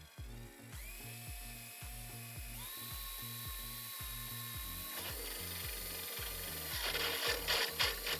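Power drill spinning a step drill bit, its motor whine rising in a few steps as it speeds up, then the bit cutting a hole in the fiberglass fairing in rough bursts near the end. Background music with a steady bass beat runs underneath.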